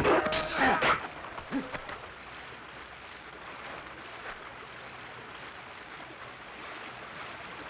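A voice crying out for about a second, then a faint steady hiss.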